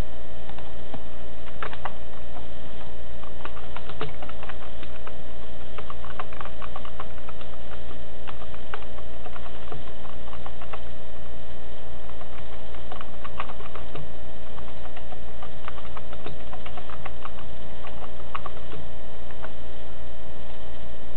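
Computer keyboard being typed on in short, irregular clicks, over a steady hum.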